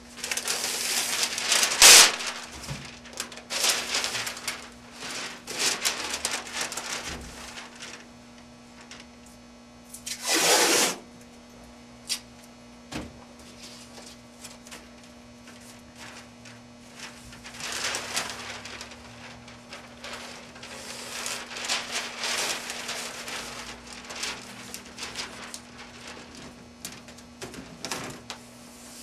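Masking paper rustling and crinkling while 3M masking tape is unrolled and pressed down, in irregular bursts. The loudest is a short solid rasp about ten seconds in.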